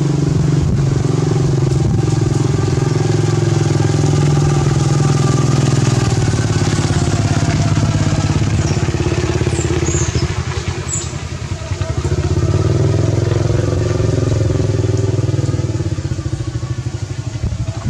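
An engine running steadily, easing off briefly about ten seconds in and then picking up again.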